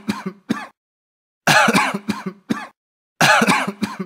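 A person coughing in repeated fits, each a hard, harsh cough trailing into one or two shorter ones. One fit is ending as the sound begins, and two more start about 1.5 and 3 seconds in.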